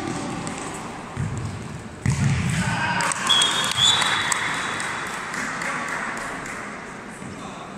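Futsal match sounds in an echoing sports hall: a sudden burst of shouting from players and spectators about two seconds in as a shot goes at goal, then a referee's whistle blown twice in quick succession, with scattered ball and shoe knocks on the floor.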